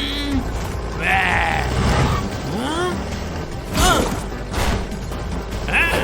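Cartoon action soundtrack: background music over a steady low rumble, with several short cries that rise and fall in pitch and a sharp crash about four seconds in.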